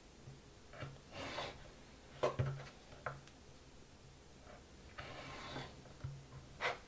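Small knife cutting orange peel on a wooden cutting board: a few faint scrapes of the blade through the peel and light knocks of the knife on the board.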